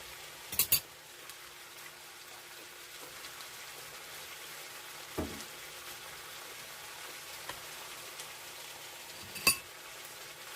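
Squash and pork stir-fry sizzling steadily in a pan, with a quick double clink of a utensil against the pan under a second in, a duller knock about five seconds in and another sharp clink near the end.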